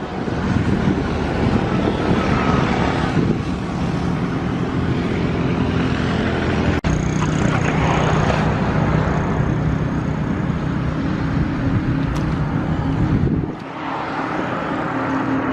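A motor running steadily with a low hum, under a rushing noise.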